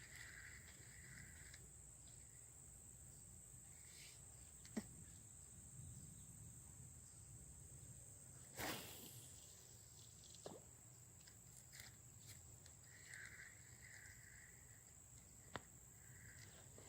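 Near silence: faint outdoor ambience with a steady high-pitched whine and a few soft clicks, one a little louder about nine seconds in.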